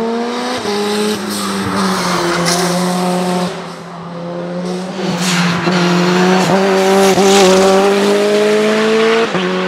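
Race car engine at full throttle, climbing through the gears: the revs rise and fall back at each upshift, with a long pull in the second half and another shift near the end. It grows louder as the car nears.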